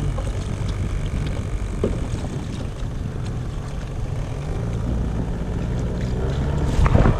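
A boat engine running at low speed, its pitch drifting up and down a little, with a louder rush of noise near the end.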